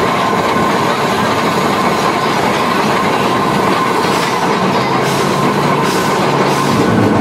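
Climax geared steam locomotive running along the track, heard close up from its front end: a steady clattering rumble of running gear and wheels on the rails with a thin steady whine. A few sharper clicks from the rails come in the second half.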